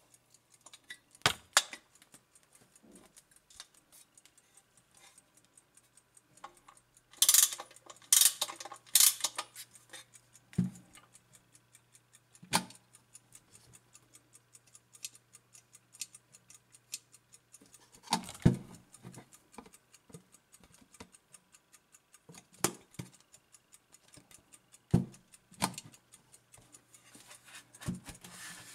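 Mechanical movement of a Soviet ChChZ brass ship's clock ticking fast and evenly. Louder clicks and knocks come from the case and its hinged glass bezel being handled, loudest in a cluster of three sharp clacks about seven to nine seconds in.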